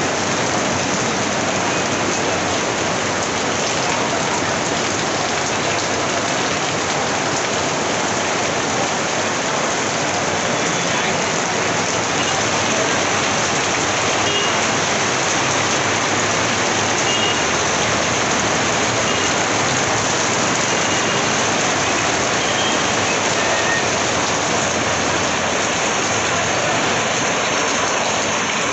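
Heavy monsoon rain falling hard and steadily, a dense even hiss of rain on surfaces, with runoff pouring from an overhead awning.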